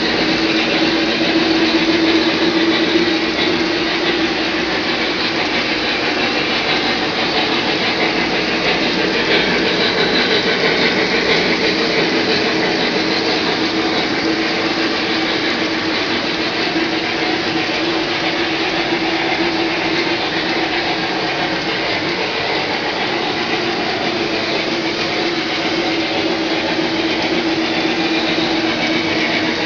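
O-gauge model freight train rolling past on three-rail track: a steady rumble of wheels on the rails, with a constant hum running under it.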